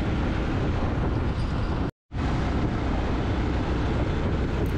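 Motorcycle riding at speed on a highway: steady wind rush on the microphone mixed with engine and road noise. The sound drops out to silence for a moment about two seconds in, then carries on as before.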